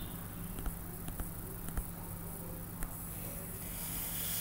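Faint scattered clicks of a stylus tapping on a tablet screen during handwriting, over a steady low electrical hum and hiss. The hiss swells near the end.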